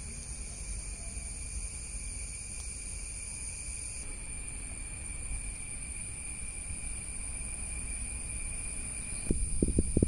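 Steady, high-pitched insect chirring outdoors, over a low rumble. Near the end a run of loud, irregular low thumps starts.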